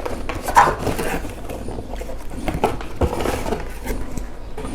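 Rustling and light clicks and knocks of a motherboard box's accessories being handled and taken out.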